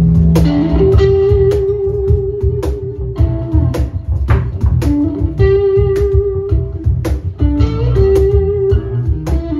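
Music: electric guitar lines over bass and a steady drum beat of about two hits a second, in a blues vein.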